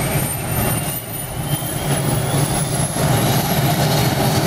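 Turboprop engine of an A-29 Super Tucano starting up: a turbine whine that rises slowly and steadily in pitch over a steady low drone.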